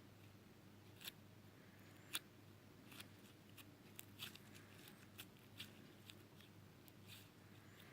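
Slime being handled, giving faint scattered clicks and pops at irregular intervals.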